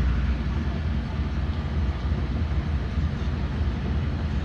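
LiAZ 5292.21 low-floor city bus under way, its engine and running gear making a steady low drone inside the passenger cabin.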